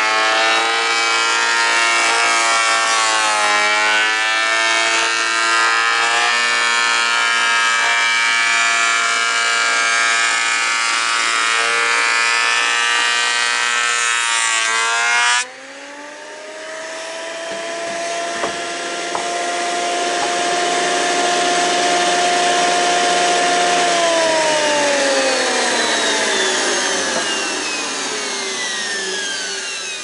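Portable thickness planer's brushed motor whining under load as it cuts a board, its pitch wavering. About halfway through the load drops off suddenly and the planer runs free with a steady whine. Near the end it winds down, its pitch falling.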